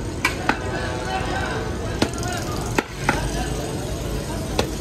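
Kitchen clatter: about five sharp knocks at uneven intervals over a steady low background hum.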